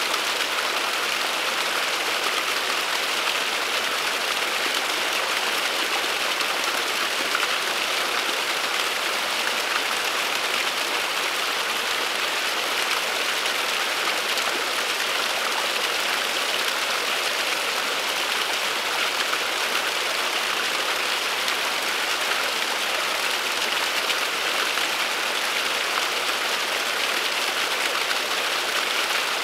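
Small waterfall splashing down a mossy bank: a steady, even hiss of falling water.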